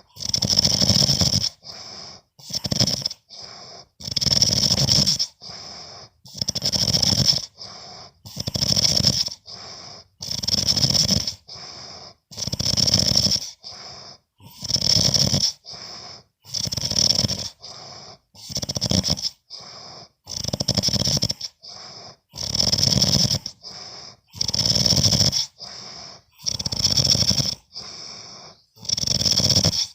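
A sleeping person snoring, a loud snore about every two seconds with a softer, shorter breath sound between each.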